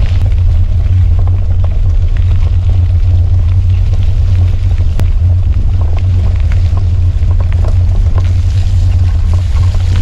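Steady, loud low rumble of wind buffeting and vibration on a handlebar-mounted camera as a mountain bike rolls along a dirt forest trail, with scattered small clicks and rattles from the bike over bumps.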